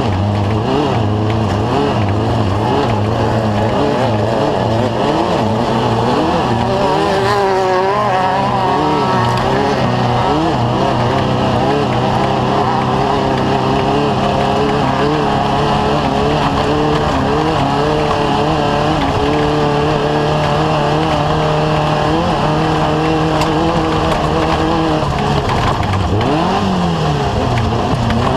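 Off-road race vehicle's engine running hard at racing speed, its pitch wavering up and down with the throttle over rough ground. Near the end the pitch drops and climbs back again.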